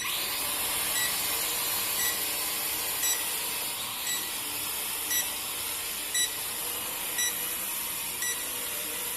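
Small camera drone's propellers whirring as a steady hiss that starts abruptly, with a short high beep repeating about once a second.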